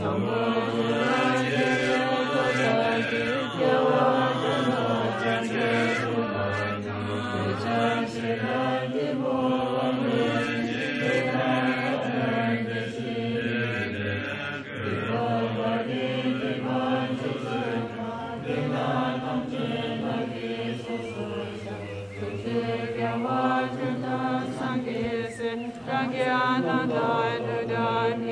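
Tibetan Buddhist prayers chanted by voices in a continuous, melodic recitation.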